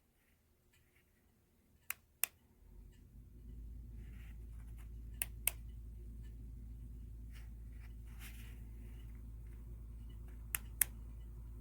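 ZMISHIBO low-profile ceiling fan motor coming up to speed about three seconds in and then running with a low steady hum. Sharp clicks come in quick pairs three times over it.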